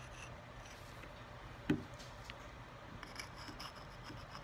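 Sharpening stone rubbing and scraping faintly against the steel Buell Blast shift drum, its corner working the square edges of the drum's grooves to knock down burrs. There is one sharp click about a second and a half in, and a faint, rapid scraping starts near the end.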